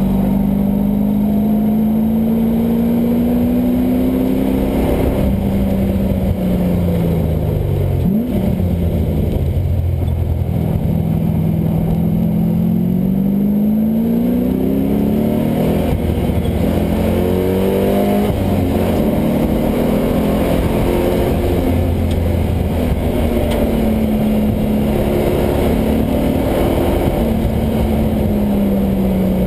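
LS1 V8 in a swapped Mazda Miata, driven hard on track and revving up and down through the gears. Its pitch climbs under acceleration and falls on upshifts and braking, with a quick rev blip about eight seconds in.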